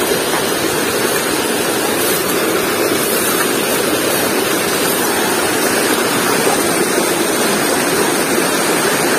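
Shallow, fast river rushing over rocks in small rapids: a loud, steady rushing of water.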